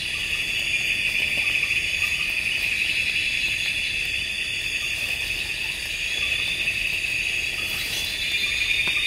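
Steady, high-pitched chorus of night insects trilling continuously.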